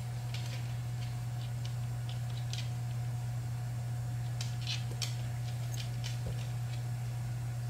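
A dog's claws clicking on a hardwood floor in scattered, irregular light ticks, over a steady low hum.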